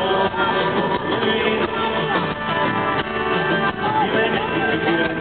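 Live band music with guitar and a male lead singer singing into a handheld microphone, heard from the audience at a concert.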